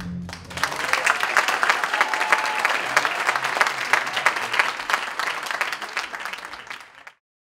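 Audience applauding as the last of the music dies away. The clapping swells within the first second, slowly thins out, and is cut off abruptly about seven seconds in.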